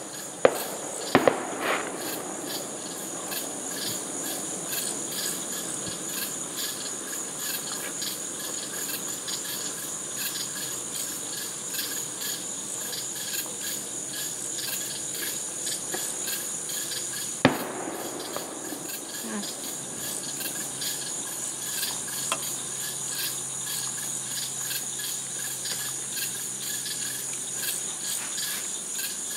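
A steady evening insect chorus of crickets chirping in a high, pulsing drone. Sharp bangs from distant fireworks break through it: a few in the first two seconds, and one more a little past halfway.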